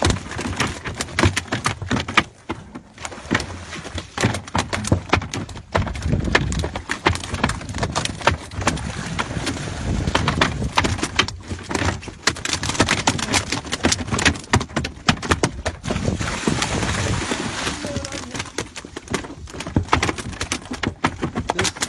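Water splashing with many sharp slaps and knocks as hooked fish thrash at the surface beside a small fishing boat.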